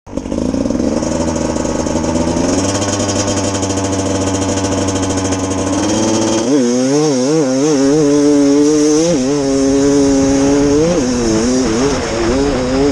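Beta RR 300 single-cylinder two-stroke enduro motorcycle engine. It holds a steady speed for the first six seconds or so, then revs up and down again and again as the bike is ridden along the track.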